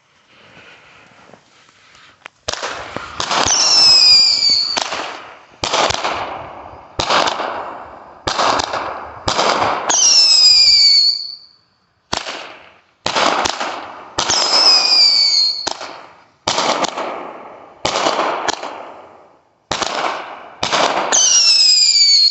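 Magnus Fireworks 200-gram, 16-shot consumer cake firing. A fuse hisses faintly for about two seconds, then shots go off roughly one a second, each a sharp report with a fading tail. Four of them carry a falling whistle.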